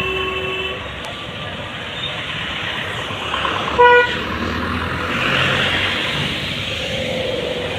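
Road traffic passing on a wet road, with steady tyre and engine noise. A single short car horn toot about four seconds in is the loudest sound.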